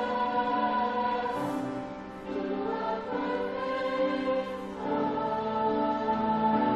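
High school choir singing slow, sustained chords, moving to a new chord about one and a half seconds in and again about five seconds in, with hissing 's' consonants at the changes.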